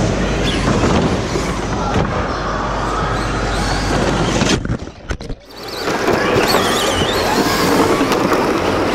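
RC model cars racing on a carpet track, towing model caravans: motors whine, rising and falling, over a steady rattle of wheels and plastic bodies. The sound briefly drops out about five seconds in.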